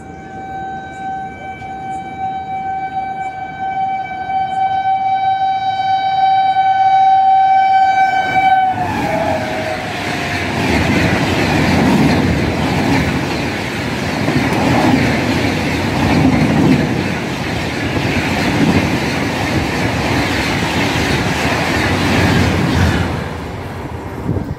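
WAP7 electric locomotive sounding one long, steady horn blast that grows louder as it approaches at speed, dropping in pitch as it passes about nine seconds in. Then the Rajdhani Express coaches rush by with a loud rumble and a rhythmic clickety-clack of wheels over the rail joints, fading when the last coach clears a couple of seconds before the end.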